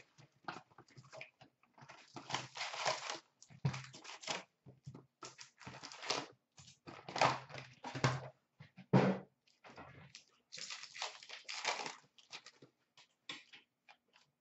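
Crinkling and rustling of foil trading-card packs and box cardboard as a box of Upper Deck SP Authentic hockey cards is unpacked and a pack torn open, in irregular bursts with a few soft knocks.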